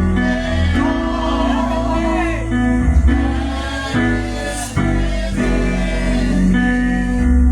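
Gospel music: singing over held chords and a bass line, playing steadily throughout.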